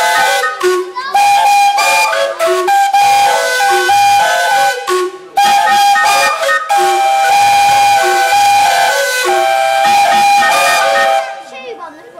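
Whistles of several narrow-gauge steam locomotives playing a composed tune: notes of different pitches sounded together and in turn, some short, some held, over a hiss of steam. The whistling stops about a second before the end.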